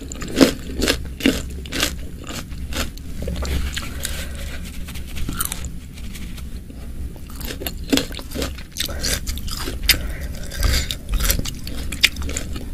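Close-miked chewing of boiled wontons and whole green bird's-eye chillies in spicy broth: wet mouth smacks and sharp crunchy clicks in quick succession. Near the end, a wooden spoon scrapes in the glass dish.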